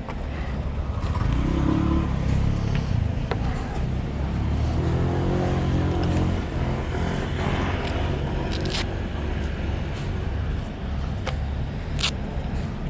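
Motor vehicle engine running with road noise, its pitch rising and falling twice as it speeds up, with a few sharp clicks.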